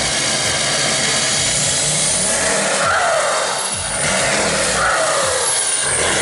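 2014 Ford F-250's 6.7-litre Power Stroke turbo-diesel V8, running on a programmer at its maximum setting with bigger injectors, heard right at the exhaust tip: it runs steadily and is revved up twice, the pitch rising and falling back each time.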